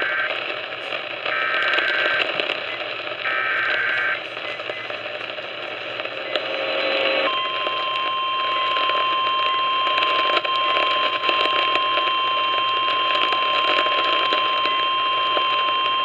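AM radio receiving an Emergency Alert System tornado warning: three short bursts of screeching digital header tones, then, about seven seconds in, the long steady single-pitched attention tone. It comes through the radio's speaker over AM static.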